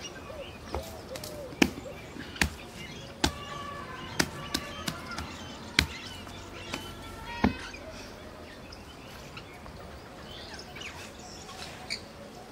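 A series of sharp knocks, about one a second for the first seven seconds, over outdoor background noise with birds chirping and calling.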